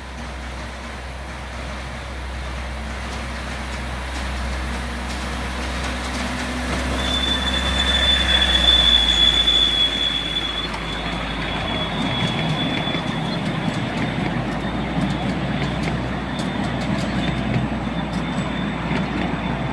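7¼-inch-gauge miniature train approaching and rolling past close by, its wheels rumbling and clicking over the rails. It grows louder as it nears and passes, with a high, steady wheel squeal for a few seconds around the middle.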